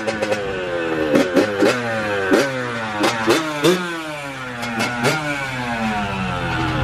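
Yamaha YZ85's 85cc single-cylinder two-stroke engine running just after a cold start, revved in about six sharp throttle blips that each fall back slowly. It settles to a steady idle near the end.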